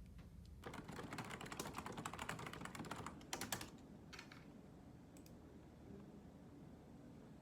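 Typing on a computer keyboard: a quick run of key clicks for about three seconds, then a couple of single clicks.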